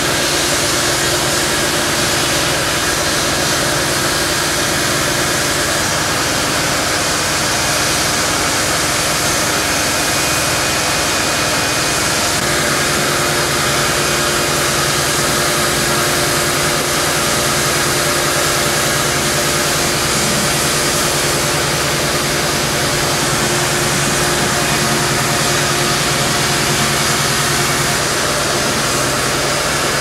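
A steady, loud mechanical drone with a hiss over it, unchanging throughout.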